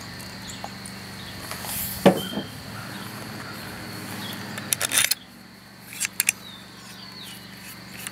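Scattered clicks and knocks of metal parts being handled as the bolts go into a riding-mower starter motor, with a sharper knock about two seconds in and a quick run of clicks near the middle. A steady high cricket trill runs under it, and a low hum stops about five seconds in.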